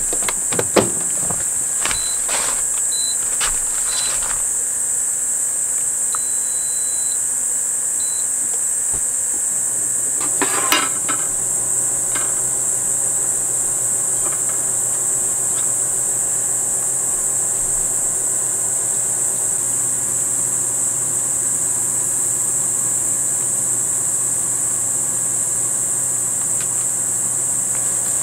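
A steady high-pitched chorus of crickets or similar insects. A few light clicks and knocks come in the first seconds and again about ten seconds in, when a low steady hum also starts.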